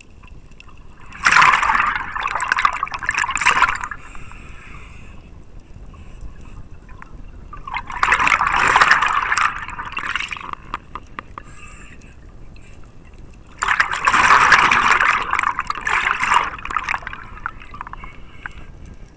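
A scuba diver's exhaled breath bubbling out of the regulator close to the mask-mounted camera: three bursts of bubbles, each a couple of seconds long and about six seconds apart, with faint crackling between them.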